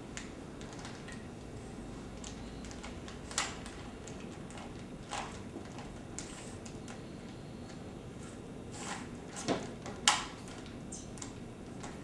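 Rubik's cube being twisted by hand: irregular plastic clicks and clacks, with a few louder knocks, the sharpest about ten seconds in.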